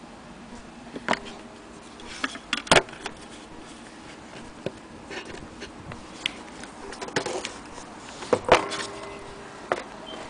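Irregular clicks and knocks of a vintage mantle clock being handled, loudest a little under 3 seconds in and again at about 8.5 seconds, a few of them leaving a brief faint ring. There is no steady ticking: the clock is not running.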